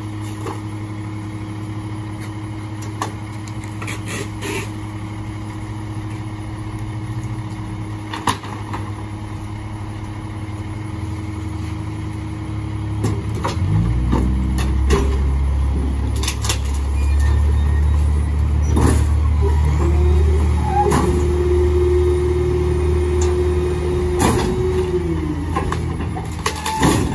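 Loadmaster rear-loader garbage truck idling, with sharp knocks as wooden fence sections and bulk waste are thrown into the hopper. About halfway through the engine speeds up to drive the packer hydraulics, and a steady hydraulic whine runs for a few seconds amid cracks of wood being broken and compacted.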